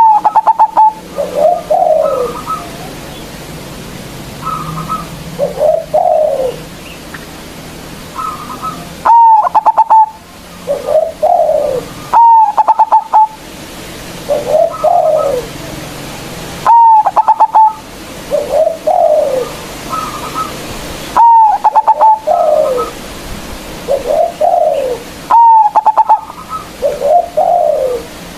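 Zebra dove (perkutut) singing its staccato cooing song, a loud rapid stutter followed by falling coos. The phrase repeats about every four seconds, with fainter coos in between.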